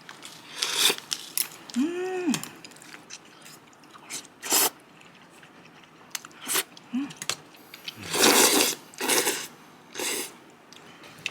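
Eating noises from a meal of soybean-milk noodles: irregular chewing and short noisy bursts of slurping. A brief hummed 'mm' rises and falls about two seconds in.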